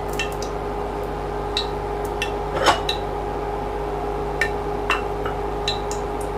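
A pan of oil heating on the stove: scattered light metallic clicks and ticks, about a dozen, over a steady background hum, the sharpest about two and a half seconds in.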